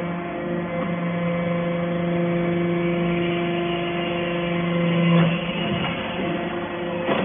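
SBJ-630 hydraulic metal chip baler running: a steady machine hum from its pump and motor, which drops away about five seconds in, giving way to a rougher clatter.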